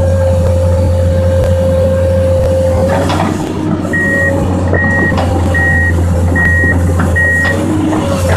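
Komatsu PC200 excavator's diesel engine running steadily with a steady whine. About halfway through, its travel alarm beeps five times, a bit over one beep a second, with a few sharp knocks.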